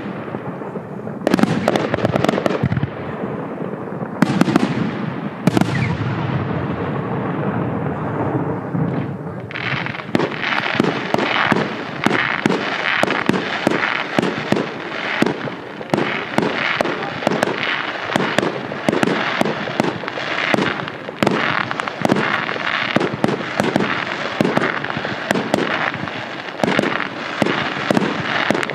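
Fireworks display: a few single loud bangs with long echoing tails, then from about ten seconds in a dense, rapid, unbroken run of sharp cracks and small bangs.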